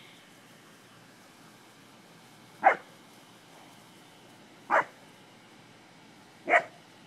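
English springer spaniel barking: three single barks about two seconds apart.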